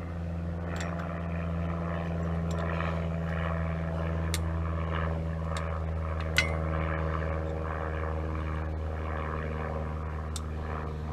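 A steady low motor drone with an even pitch, with a few short sharp clicks over it, the loudest about six seconds in.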